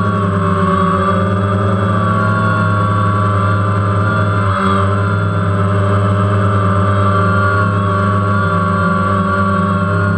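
DJI Phantom quadcopter's motors and propellers whining steadily, heard through the GoPro Hero3 carried on the drone, the pitch wavering slightly as it hovers and drifts.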